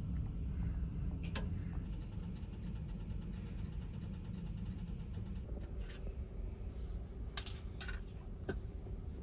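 Clothes hangers with metal hooks clinking and clacking against metal wall hooks as they are handled, a few sharp clicks near the end. A steady low rumble runs underneath.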